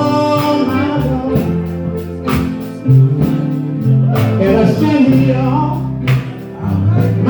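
Live gospel band playing, with bass, drums and guitar, and a voice singing over it in phrases.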